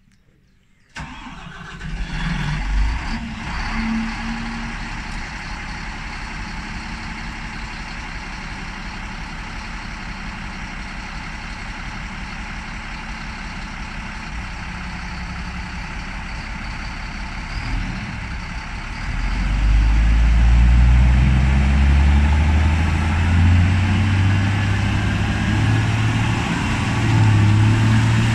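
Doosan-Moxy MT41 articulated dump truck's diesel engine starting about a second in, then idling steadily. About 19 seconds in it revs up and runs louder and deeper.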